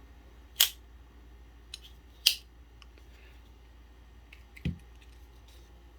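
Two sharp clicks about a second and a half apart, with a fainter click between them, as a triad-lock folding knife is handled and its blade snaps against the lock. A soft low thump follows near the end.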